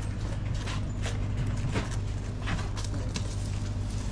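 Shop room tone: a steady low hum with scattered light knocks and clicks, about one every second.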